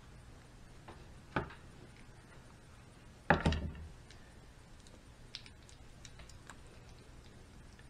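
Light clicks and knocks of a kitchen knife and plastic cutting board as a squirrel is cut up by hand, with a sharp click about a second in and a louder thump about three seconds in, then a few faint ticks.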